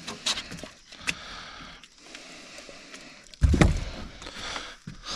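Small clicks and rattles of line and hardware, then a heavy thump about three and a half seconds in as a just-unhooked flathead catfish is dropped onto the boat floor.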